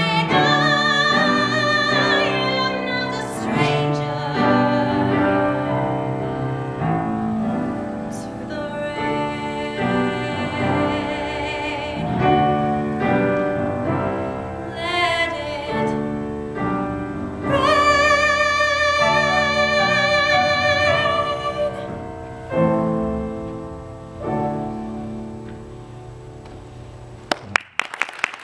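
Solo female voice singing a musical-theatre ballad with piano accompaniment, ending on a long held note with vibrato about three-quarters of the way through. After that, the piano's closing chords ring out and fade, and a few sharp clicks come right at the end.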